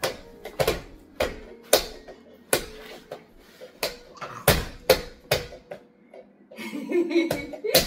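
A baby slapping the plastic toy tray of a Skip Hop activity center: about a dozen sharp, irregular smacks, with a brief vocal sound near the end.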